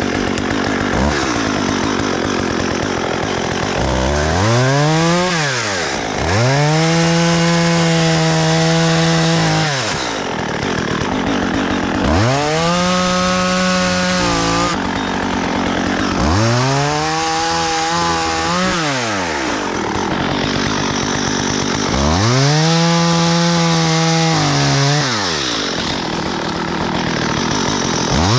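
STIHL MS 194 T top-handle two-stroke chainsaw run up to full throttle about five times. Each time the engine note rises, holds steady for two to four seconds, then drops back toward idle.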